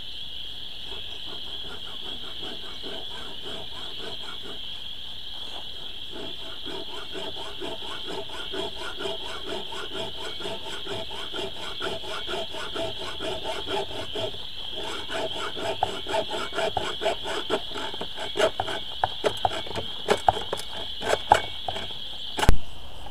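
Hacksaw cutting a greenhouse frame tube, in rhythmic back-and-forth strokes with a ringing tone that start about six seconds in and get louder and sharper near the end, with a few sharp clicks; the blade is too dull to cut well. A steady high chirring of insects runs behind it.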